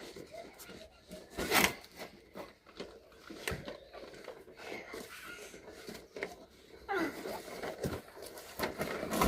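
Handling noises of toy pieces and packaging: scattered rustles and light knocks, with a sharp rustle about one and a half seconds in.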